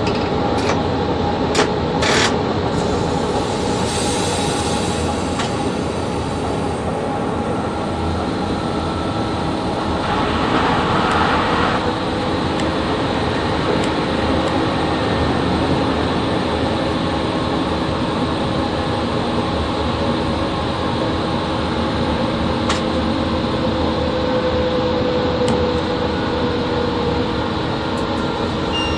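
VL80 electric locomotive running with a freight train, heard inside the cab: a steady rumble and hum from the traction equipment and the wheels on the rails. There are a few sharp clicks in the first couple of seconds and a brief hiss about ten seconds in.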